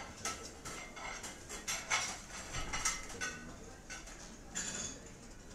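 Restaurant dishes and cutlery clinking and clattering: a string of short, scattered clinks.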